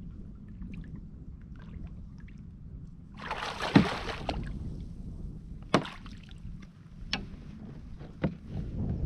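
Wind buffeting the microphone on a fishing kayak, a steady low rumble. About three seconds in there is a second-long burst of noise with a sharp hit, then three sharp knocks a little over a second apart.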